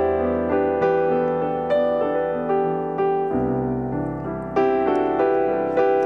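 Background piano music: slow, evenly paced notes over held low bass notes.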